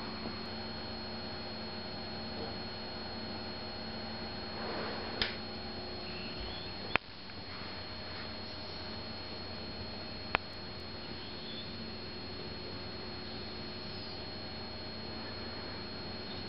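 Steady low hum and hiss of room tone with a faint high whine, broken by a brief rustle about five seconds in and two sharp clicks, about seven and ten seconds in.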